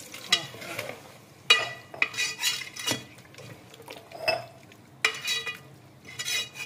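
Metal ladle stirring minced meat and peas in watery gravy, scraping and clanking against the inside of a metal pot in repeated strokes, each clank ringing briefly.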